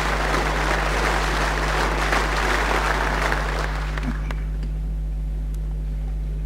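A large hall audience applauding, the clapping dying away about four seconds in. A steady low hum runs underneath throughout.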